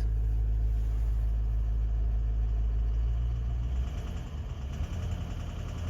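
Toyota Land Cruiser 200's 1VD-FTV twin-turbo V8 diesel idling in Drive against the held brake, under load. The engine note turns rougher and a little quieter about two-thirds of the way through. The owner hears a characteristic knock and clatter under load, which he puts down to the injectors.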